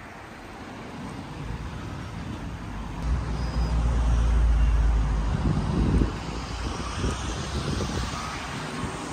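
Road traffic: a vehicle passing close by, its rumble and tyre noise swelling to a peak about four to five seconds in, then fading back to steady traffic noise.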